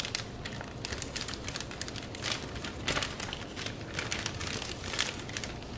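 Clear plastic plant sleeve crinkling in irregular crackles as it is handled around a potted orchid.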